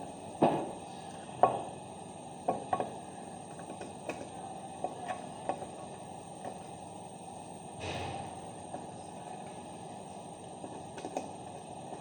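Small sharp clicks and taps of a wire and screwdriver being handled at an overload relay's terminals while wiring a starter's control circuit: a few louder knocks in the first three seconds, then scattered faint ticks and a short rustle about eight seconds in.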